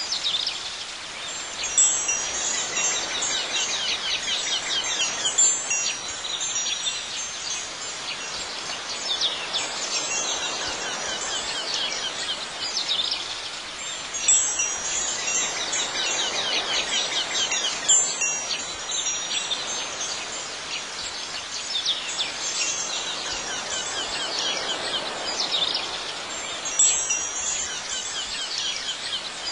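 Chimes tinkling continuously over a soft steady background hiss. Clusters of brighter strikes recur in the same pattern about every twelve and a half seconds.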